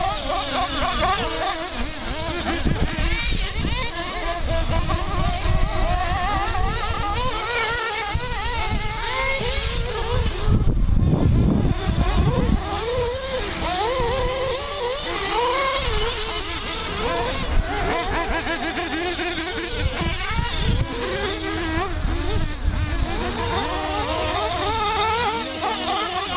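Several nitro-engined RC off-road buggies racing, their small glow-fuel two-stroke engines buzzing at high pitch and revving up and down as they accelerate and brake around the track. A louder, deeper rush of noise swells about ten seconds in and fades a couple of seconds later.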